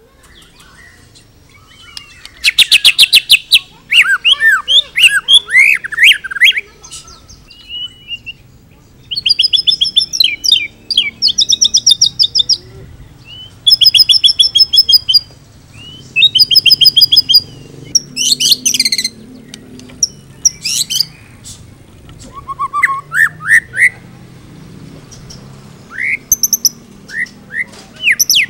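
White-rumped shama singing a varied song in separate phrases with short pauses. The song is packed with imitations of other birds' calls and includes rapid rattling trills through the middle and quick rising notes near the end.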